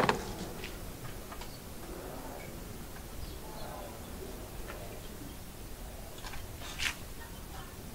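Scattered light clicks and rustles of paper and art materials being handled at a worktable, with a sharp click at the very start and a short hiss about seven seconds in.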